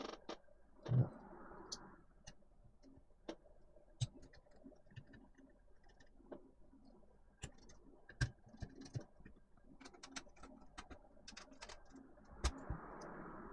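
Irregular small clicks and taps from laptop parts being handled, with two brief rustles, one about a second in and one near the end.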